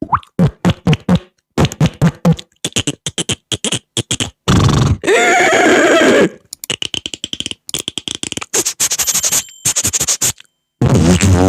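Beatboxer making mouth sound effects: runs of quick sharp clicks and pops, a longer raspy noise around the middle, and near the end a held vocal tone that bends in pitch.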